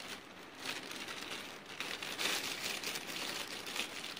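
Clear plastic piping bag crinkling and rustling as it is handled and worked with the fingers.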